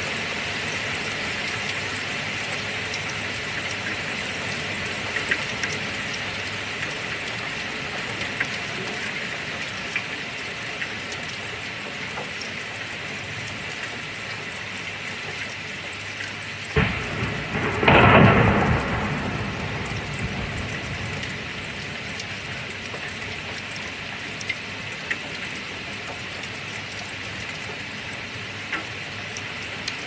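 Steady heavy rain hissing, with scattered small drop ticks. A little past halfway a thunderclap cracks suddenly and rumbles away over a couple of seconds.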